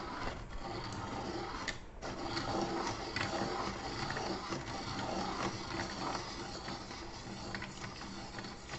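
Hand-cranked, steel-bodied table-top rotary pencil sharpener being cranked steadily, its cutters shaving a pencil: a continuous mechanical whirr with small clicks.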